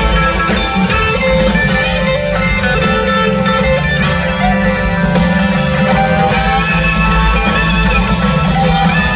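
Live band playing: two electric guitars over drums and bass, steady and loud.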